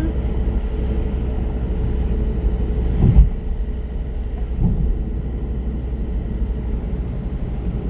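Steady low rumble of a car driving, road and engine noise, with a sharp bump about three seconds in and a smaller one nearly two seconds later.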